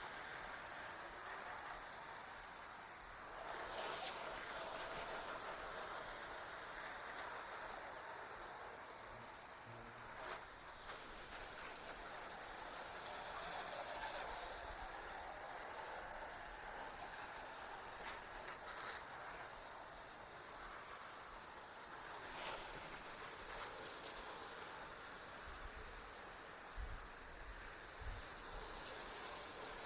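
High-pitched insect chorus, a steady hiss that wavers slowly up and down in pitch, with a few faint knocks.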